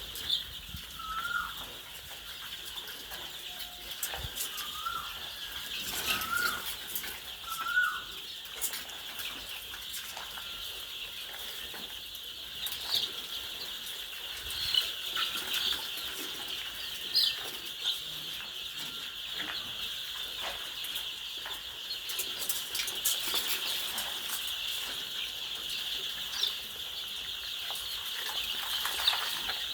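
Chickens in a poultry house: a flock clucking and calling over a steady high-pitched din, with five short rising calls in the first eight seconds and scattered clicks and wing flaps.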